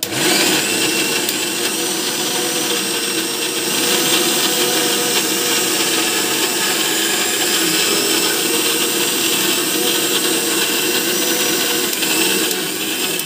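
Prestige electric mixer grinder running steadily as it grinds boiled sweet potato and jaggery into a mash. It cuts out and restarts just at the start, and stops at the end.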